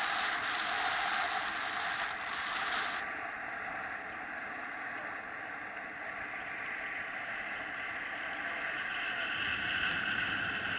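Steady rush of airflow over the camera microphone on a paraglider in flight; the higher hiss drops away suddenly about three seconds in.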